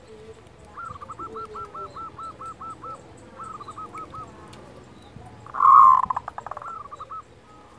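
Zebra dove (perkutut) giving its kerot courtship and rivalry call. A fast run of short, even staccato notes is followed by a shorter run, then a louder rolling coo about two thirds of the way in.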